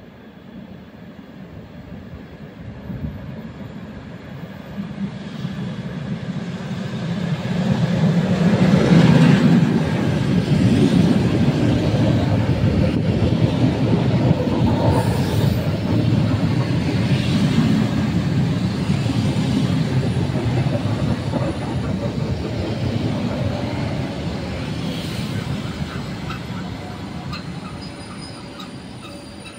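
ER2K electric multiple unit (ER2K-1228) drawing into the platform: a rumble that grows as it approaches, loudest about nine seconds in as the front passes, then its wheels rumbling and clacking as the cars roll by close, gradually quieter as it slows.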